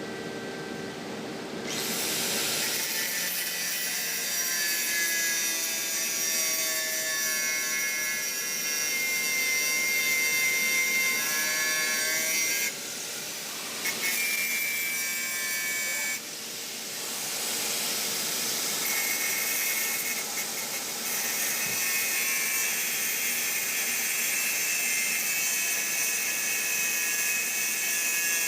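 Electric arc welding a vertical joint: the arc hisses and crackles steadily after starting a couple of seconds in, cuts off abruptly about twelve seconds in, gives a brief burst, then strikes again a few seconds later and runs on.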